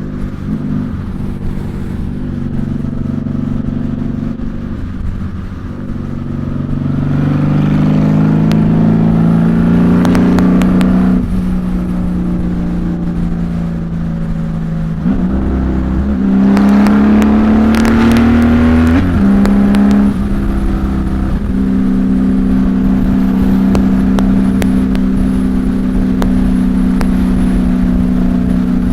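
Honda Valkyrie's flat-six with six-into-six Cobra exhaust pipes, heard from inside the rider's helmet over wind noise. The engine note climbs as the bike accelerates and falls back twice, then holds steady at freeway cruise for the last several seconds.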